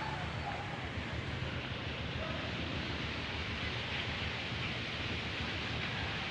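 Steady wind rumble and hiss on the microphone, with a few faint short whistle-like tones near the start and about two seconds in.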